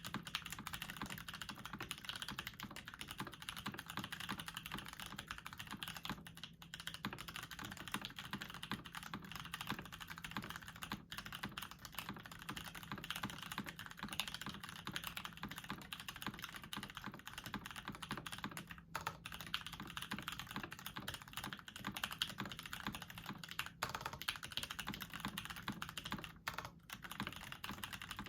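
Fast, continuous typing on an Eniigma Infinitum TKL mechanical keyboard with stock factory-lubed Parallel Pewter switches in a full aluminium plate with no sound dampening: a dense stream of keystrokes with only a few brief pauses.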